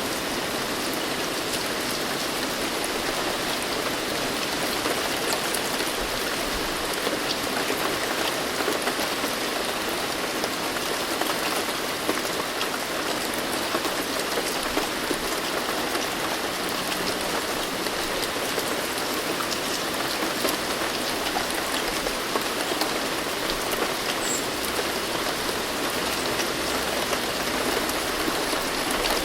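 Steady rain falling, a dense hiss with many small drop patters.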